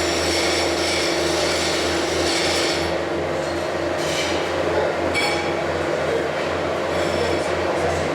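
Steady din of welding-shop machinery with a constant low hum, and a high-pitched whine that comes and goes in stretches.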